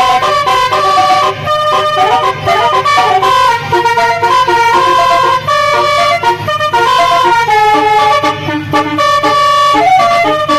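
Basuri telolet bus horn, a multi-tone musical horn, playing a melody loudly as a run of held notes stepping up and down in pitch, over a steady low hum.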